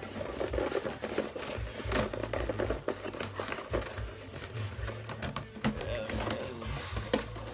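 Cardboard microphone box and its cardboard insert rustling, scraping and knocking in the hands as the tightly packed microphone is worked out of it.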